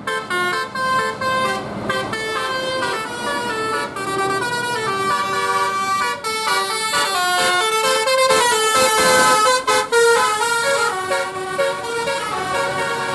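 Bus telolet horn (Basuri type) playing a melody: a quick run of changing horn notes.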